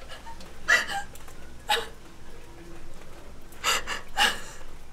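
A young woman crying in short, catching sobs, four gasping breaths spaced a second or two apart.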